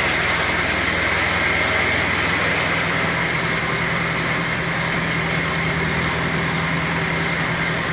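Mitsubishi 4D30 four-cylinder diesel engine idling steadily with a slight clatter, which the owner puts down to valve clearance that has grown too wide and needs adjusting.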